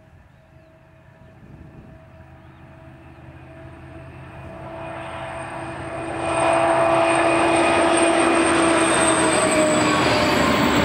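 DB class 218 diesel-hydraulic locomotive approaching under load and passing close by with a long car-carrier train. Its engine drone and a high whine grow steadily louder and get much louder about six seconds in as the locomotive passes. The tones drop slightly in pitch as it goes by, and the wagons' wheels then keep rolling past.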